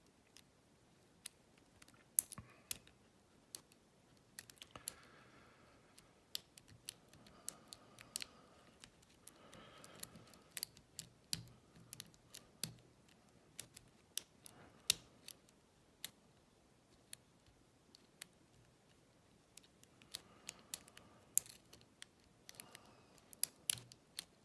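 Metal lock pick working the pin stack of an old Yale pin-tumbler padlock held under tension, giving sharp, irregular clicks and light scrapes as the pins are lifted and released without the lock opening.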